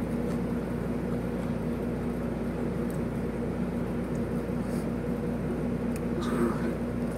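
Steady electrical or fan-like hum running under the whole stretch, with a few faint wet clicks of chewing and mouth sounds.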